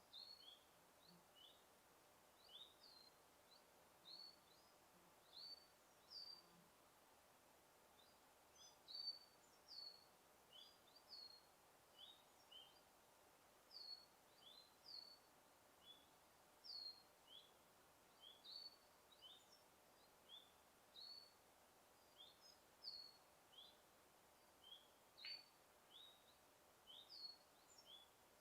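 Birds chirping in a forest: a steady string of short, high chirps, many dropping quickly in pitch, about one or two a second, over a faint even hiss.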